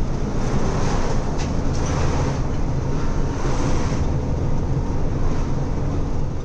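Truck engine drone and road noise heard inside the cab while driving, a steady low rumble under a wash of tyre and wind noise.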